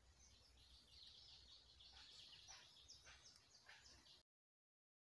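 Near silence, with faint high bird chirps over a low rumble. It cuts to dead silence about four seconds in.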